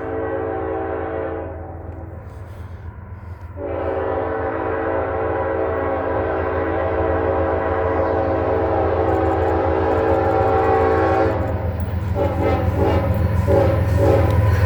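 Norfolk Southern freight locomotive's air horn sounding a chord. One blast ends about a second and a half in. After a short gap, a long steady blast runs from about four seconds to about eleven, followed by a quick string of short toots. Under it is the low rumble of the approaching diesel locomotive, growing louder.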